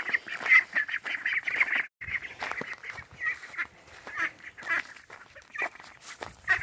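A small flock of young ducks calling with quick runs of short quacks, busiest in the first two seconds and sparser after that.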